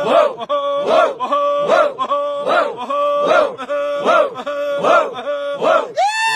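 Arabic tarab music: a short ornamented melodic phrase repeated about every 0.8 s over a held note, in a steady loop.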